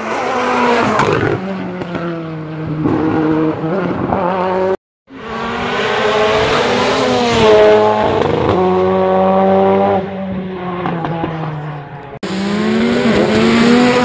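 Skoda Fabia WRC rally car's turbocharged four-cylinder engine at full throttle, revs climbing and dropping again with each upshift. It comes in separate passes joined by cuts, with a brief break in the sound about five seconds in.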